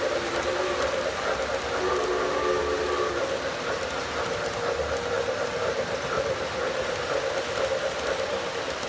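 O gauge model freight cars rolling past on three-rail track: a steady rumble and clatter of wheels on the rails. A held tone sounds over it at first and fades out about three seconds in.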